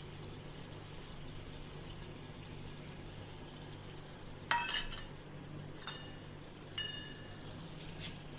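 Drumstick curry with water just added, sizzling quietly in a wok over a low steady hum. Four sharp clinks of a metal spoon against the wok come in the second half, the first the loudest, each ringing briefly.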